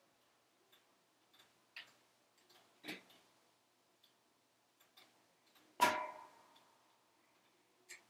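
Wood fire in a wood-burning stove crackling, with scattered, irregular sharp pops. A heavier pop comes just before three seconds, and the loudest pop, about six seconds in, rings briefly.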